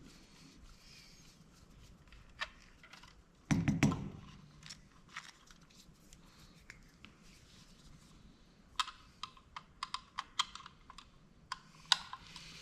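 Light clicks and taps of a small screwdriver and metal parts as tiny screws are worked out of a security camera's lens module. There is a louder handling knock about three and a half seconds in and a quick run of light clicks near the end.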